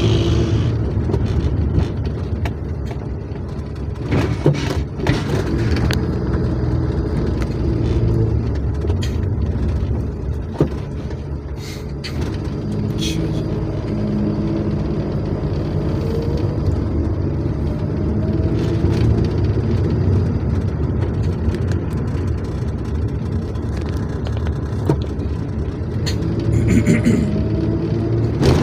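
Car driving at night, heard from inside the cabin: a steady low rumble of engine and tyre noise. Twice the engine note rises as the car picks up speed.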